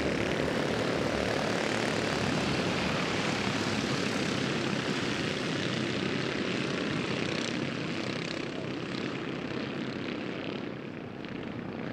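A pack of Junior 2 off-road racing karts accelerating together at full throttle after a green-flag restart, many small engines buzzing as one dense drone that eases off a little near the end.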